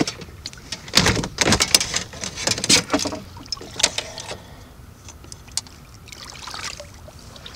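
Shallow water splashing and sloshing, with several sharp splashes in the first three seconds, then quieter lapping.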